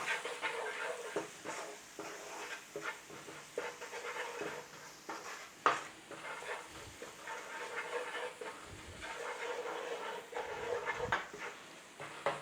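Ground curry spices sizzling in hot oil in a frying pan as they bloom, with a spoon stirring and scraping the pan in short, irregular strokes.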